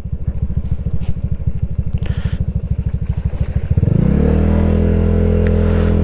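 Honda Giorno 160 scooter's single-cylinder engine running at low speed with an even pulsing beat. About four seconds in it opens up: the note rises and then holds steady as the scooter accelerates.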